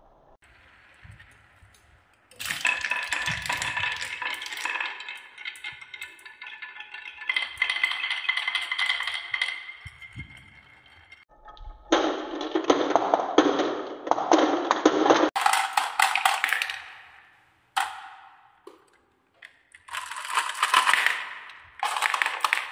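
Many glass marbles rolling down wooden marble-run tracks, clattering and clicking against the wood and each other. The clatter comes in several runs of a few seconds each, with short breaks between them.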